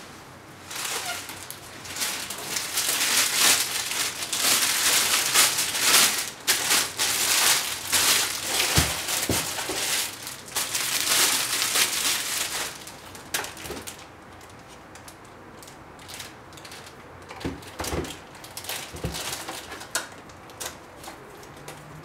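Clear plastic shoe bag crinkling and rustling as hands pull it off a sneaker and crumple it. The sound is dense and loud for about twelve seconds, then thins to scattered rustles and light taps as the shoe is handled.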